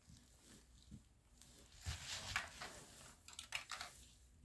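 Faint, scattered clicks and rattles of a toddler handling the plastic pieces of an activity-cube toy.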